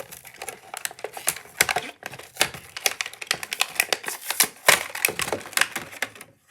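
Beyblade packaging being opened and handled: a rapid, irregular run of clicks, crackles and crinkles of cardboard and plastic.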